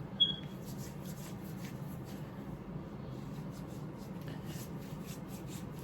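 Soft rubbing and rustling handling noises over a steady low hum in the background. A short, sharp high squeak about a quarter second in.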